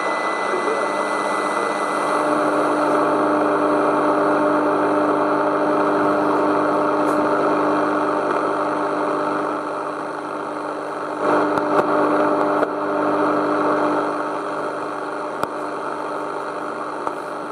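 Cat Radio RX801 receiver's speaker giving out steady radio static hiss with faint steady whistling tones, the noise of a band with no clear station. The noise shifts a little past the middle, with a short louder burst, and a few faint clicks come near the end.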